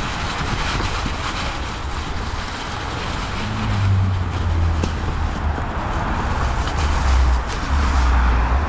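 Electric dirt bike ridden along a dirt trail: wind buffeting the microphone over the steady noise of knobby tyres rolling on loose dirt and rocks.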